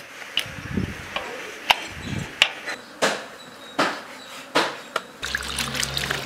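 Knife chopping on a wooden cutting board, about six sharp strokes at uneven intervals.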